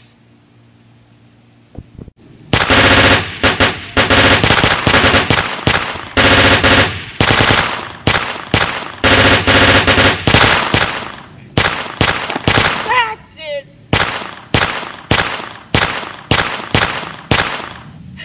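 Simulated machine-gun fire: rapid automatic bursts starting about two and a half seconds in, broken into several long volleys. In the last few seconds it changes to single shots about two to three a second.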